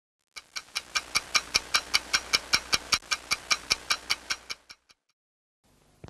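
Rapid regular ticking, about five ticks a second, each tick with a short ringing tone; it starts half a second in and fades out before the fifth second. A faint hiss follows near the end.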